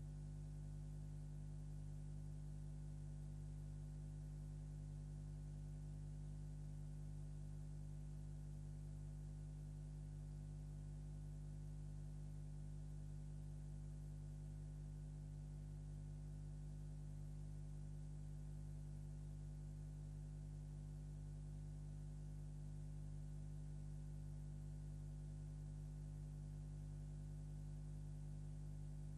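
Steady electrical hum with several tones over a light hiss, holding the same level throughout: no live sound on the track.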